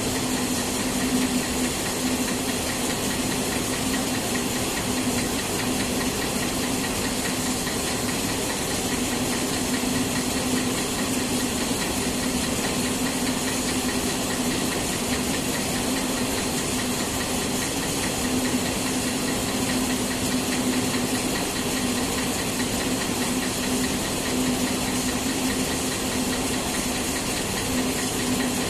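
Industrial machinery running steadily: a constant hum with a hiss over it.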